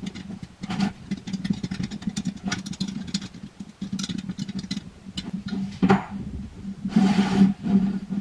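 Square steel tubes handled on a hardboard work surface: light metal clicks and knocks, with a sharper knock just before six seconds in and a short scrape about seven seconds in, over a steady low hum.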